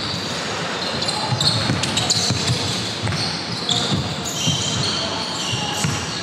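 Basketball game on an indoor court: a ball bouncing on the floor in irregular thuds, with players' voices in the background.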